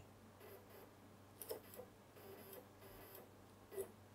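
Near silence with a few faint, irregular clicks: two close together about a second and a half in and one more near the end.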